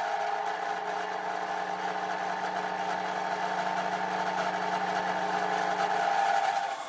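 CNC milling machine's BT30 spindle running and cutting metal: a steady machining whine over a lower hum, with a hiss of cutting above, that drops away just before the end.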